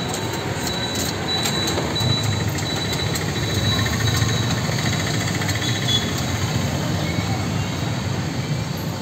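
Steady road-traffic din of passing motorbikes and other vehicles, with scattered light clicks.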